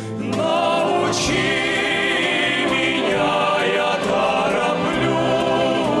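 A vocal ensemble singing over instrumental accompaniment, the voices holding long, wavering notes between sung lines.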